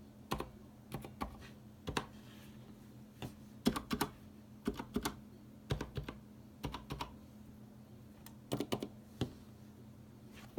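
Typing on a Leopold FC900R PD mechanical keyboard with Cherry MX Silent Red linear switches and PBT keycaps: keystrokes in uneven bursts separated by short pauses.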